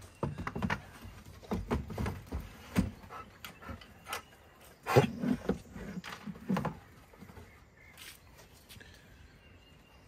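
Irregular light knocks and thuds, with a louder cluster of them a little past the middle.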